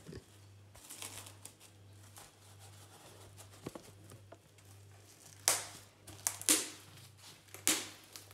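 Plastic cling film crinkling and rustling as it is smoothed by hand over a ball of dough, faint at first, then three louder swishes in the second half.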